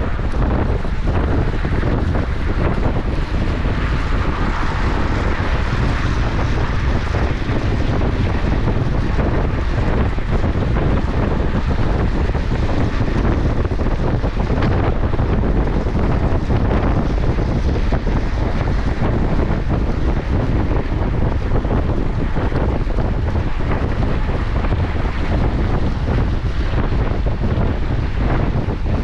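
Wind buffeting the microphone of a camera on a moving track bicycle at speed: a steady, loud, low rumble that never lets up.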